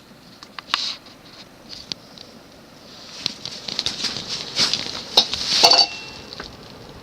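Casablanca Ventura ceiling fan with cut-down 27-inch cane blades speeding up on medium speed: a rush of moving air swells over a few seconds, with scattered light metallic clinks and rattles.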